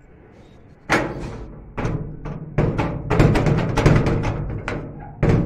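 Repeated banging on a door that is bolted from the other side: a few spaced blows, then a fast flurry of booming hits, and one last hard blow near the end.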